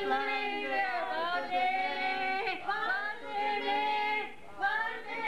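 A high voice singing a slow melody with long held, wavering notes and glides between them, breaking off briefly about four seconds in.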